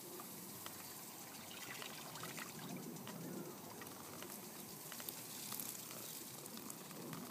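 Faint, steady trickling and splashing of running water.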